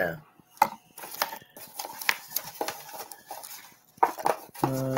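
Small objects clicking and knocking against each other as they are handled and rummaged through in a box, with some rustling. A low, steady held note begins near the end.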